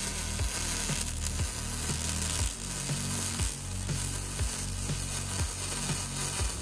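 Prime Weld MIG180 MIG welder arc crackling steadily while welding a crack in a steel mower deck. Background music with a low beat about twice a second plays underneath.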